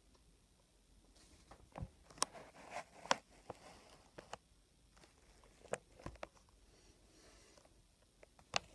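Faint scattered clicks and light knocks from small objects being handled, with soft rustling between them, the loudest knock about three seconds in and another sharp one near the end.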